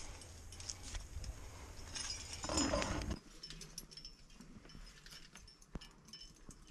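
Faint rustling with scattered light clicks and clinks of climbing gear, over a low rumble that drops away suddenly about three seconds in.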